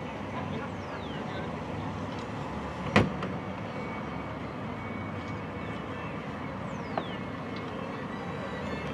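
Steady vehicle noise and splashing water as a pickup truck hauls a pontoon boat on its trailer up a boat ramp. There is a sharp clank about three seconds in and a smaller click near seven seconds.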